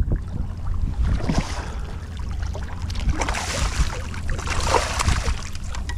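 Wind buffeting the microphone in a steady low rumble, with water splashing and scattered clicks and knocks that come and go, busiest in the middle of the stretch.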